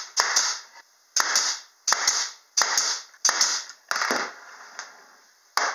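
Pneumatic brad nailer firing brad nails into a small plywood frame, about seven shots, each a sharp snap followed by a short hiss of exhaust air. They come roughly one every 0.7 s, with a longer pause before the last shot near the end.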